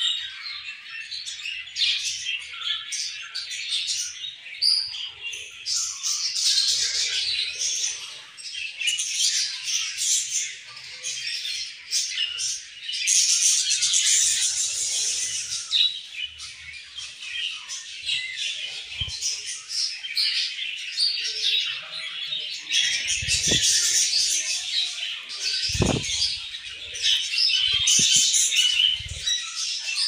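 A colony of budgerigars chattering and chirping continuously, many birds calling at once, with a burst of wing flutter as a bird flies between perches. A few short low thumps come near the end.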